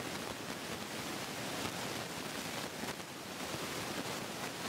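Steady rushing noise of a Boeing 777-300ER's jet engines on the landing roll, an even hiss-like rush with no distinct tones, heard through a poor microphone.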